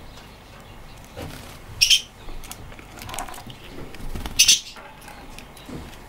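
Budgerigar giving two short, sharp high chirps about two and a half seconds apart, with faint clicks between them.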